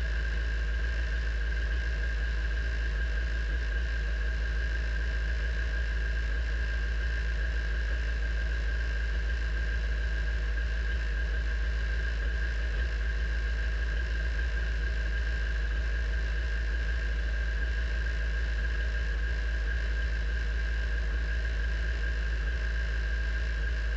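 Radical race car's engine idling steadily in neutral, a low even rumble with a steady high-pitched whine over it.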